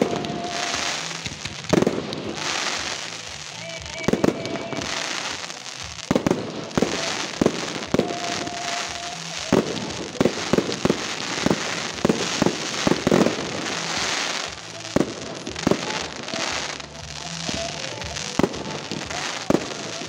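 Fireworks display: aerial shells bursting in a rapid, irregular series of sharp bangs, more than a dozen, over music playing in the background.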